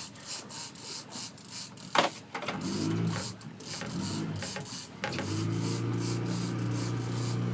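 Fishing reel being cranked, a rhythmic rasp of about four strokes a second, with a sharp click about two seconds in. A steady low motor hum comes in partway through and holds from about five seconds on.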